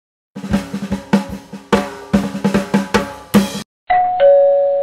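A drum-fill sound effect of rapid snare and bass-drum hits with cymbal for about three seconds, then a two-note chime, a higher tone joined by a lower one, held until the end.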